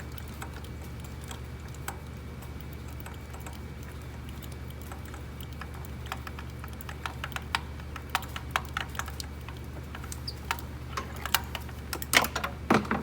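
Small irregular metal clicks and taps of a spark plug socket and extension as a spark plug is threaded in by hand, sparse at first and coming thicker toward the end, over a steady low hum.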